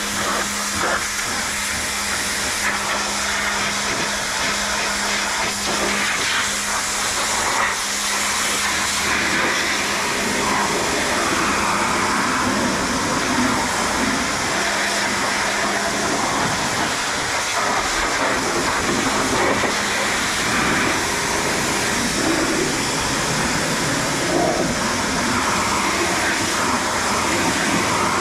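Craftsman pressure washer spraying a steady hissing jet of water over an engine bay, with the spray splashing off engine parts. A faint steady hum runs underneath and fades out about halfway.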